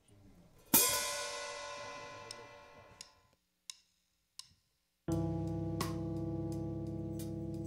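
Band opening a song: a cymbal struck once and left ringing as it slowly fades, a few light ticks, then about five seconds in a keyboard chord comes in and is held steadily.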